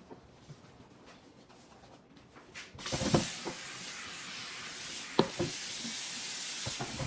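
Kitchen tap water running into the sink, starting about three seconds in and stopping suddenly near the end, with a few knocks of items being handled under the stream.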